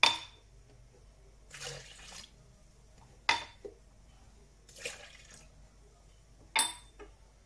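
Glasses of warm water poured into a blender jar in short splashes, with sharp glass clinks about every three seconds as the glasses knock the jar or are set down.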